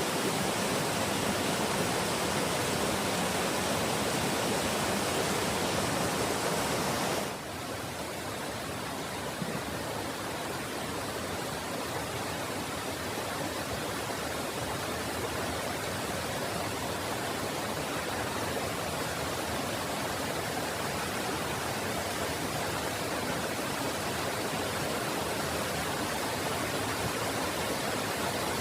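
Waterfall: a steady rush of falling water. It drops a little in level about seven seconds in, then runs on evenly.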